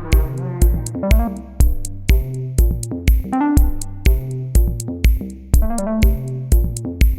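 Background electronic music with a steady drum-machine beat, about two beats a second, and synthesizer or keyboard notes.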